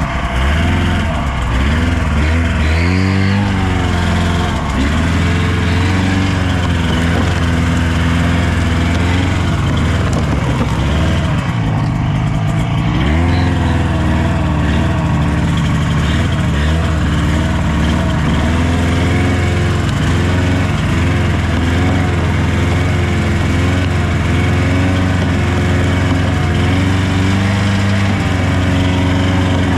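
Car engine running while driving, its revs rising and falling several times, most clearly about three seconds in and again about thirteen seconds in.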